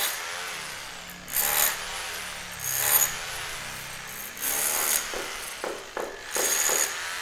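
Repeated rasping strokes of a hand tool working a building material, roughly one every one and a half seconds, with a few short knocks near the end.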